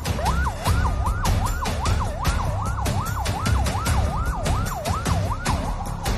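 Emergency vehicle siren in a fast yelp, sweeping up and down about three times a second, then switching near the end to a quicker, narrower warble.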